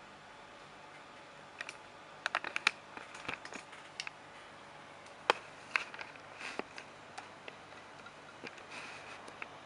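Keys pressed on an external computer keyboard: a scatter of sharp plastic clicks starting about a second and a half in, some in quick clusters, the loudest around two and a half and five seconds in.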